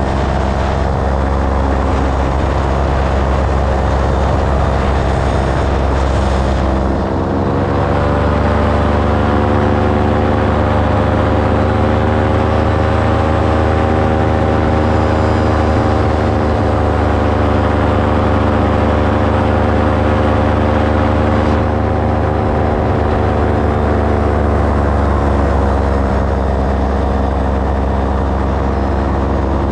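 Light aircraft's propeller engine droning steadily. Its pitch rises a little about seven seconds in and settles back down around 26 seconds.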